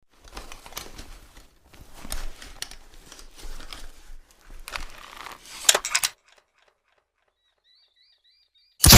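Repeating crossbow being worked: spurts of wooden clattering and rattling with sharp snaps, the loudest snaps coming in a quick cluster a little before six seconds in. After a pause a loud, sudden crack starts just before the end.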